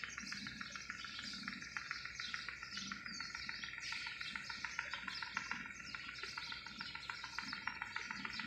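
A dense chorus of many small birds chirping and twittering over one another, without a break.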